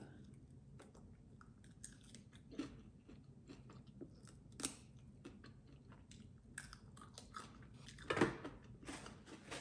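Close-miked chewing and biting on a fried chicken wing, faint, with scattered small crunches and wet mouth clicks. A brief louder sound comes about eight seconds in.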